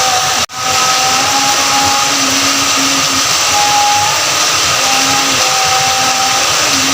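Heavy rain falling in a steady, loud hiss, with faint humming tones that come and go beneath it. The sound drops out briefly about half a second in.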